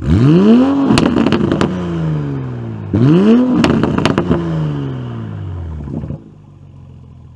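Toyota MKV Supra with a Tomei dual exhaust and stock downpipe being revved twice: each rev climbs sharply and falls away with a string of pops and crackles from the exhaust, and the engine settles back to idle near the end.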